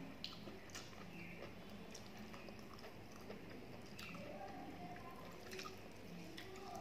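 A hand mixing panta bhat, cooked rice soaked in water, in a steel plate: faint wet squishing with a few small clicks, alongside chewing.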